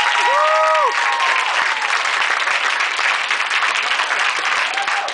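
Audience applauding steadily after a spoken-word performance, with a short rising-and-falling call from the crowd in the first second.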